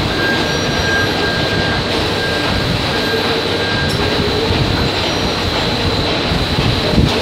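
Steady din of factory machinery running, with a constant high whine. A second, lower whine cuts in and out during the first few seconds, and there is a small knock near the end.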